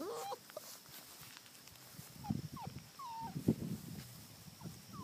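Four-week-old Labrador retriever puppies whining in short high yelps, several of them, some rising and some falling in pitch, over the rustle of footsteps in grass.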